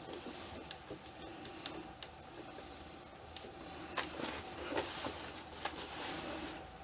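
Quiet handling sounds as clothing is worked onto a ball-jointed doll: soft fabric rustling with a few light clicks and taps, the sharpest about four seconds in, over a faint steady hum.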